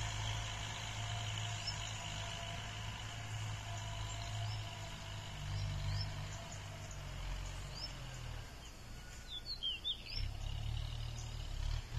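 Distant farm tractor running steadily as it plows, a low drone. Over it a bird chirps repeatedly in short rising notes, with a quick cluster of chirps about nine seconds in.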